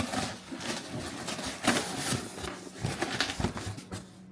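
Rustling and knocking as packing material and a parts catalogue are handled and lifted out of a cardboard box, in irregular scrapes with a few louder knocks.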